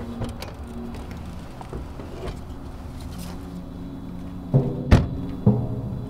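A sedan's driver door is slammed shut with one sharp bang about five seconds in. Around it, film score music plays, with deep drum hits about once a second starting near the end.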